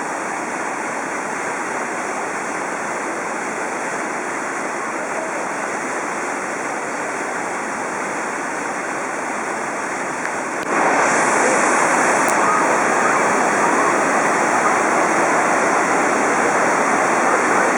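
Kegon Falls, a tall waterfall, pouring in a steady, dense rush of falling water. The sound abruptly gets louder about two-thirds of the way through and holds at that level.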